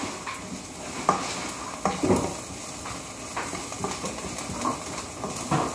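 Spatula stirring and scraping chopped onion in a nonstick wok, with several sharp knocks against the pan over a steady sizzle: onion sautéing on the hob.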